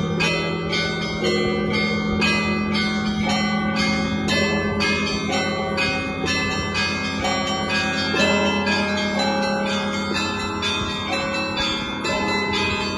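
Russian Orthodox church bells ringing from a kremlin bell tower. Many small and middle bells of different pitches are struck by their clappers in quick succession, over the lingering hum of a larger bell.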